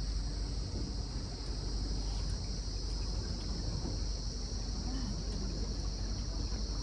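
A steady high-pitched drone of insects in the lakeside rainforest, unbroken throughout, over the low steady hum of the tour boat's motor.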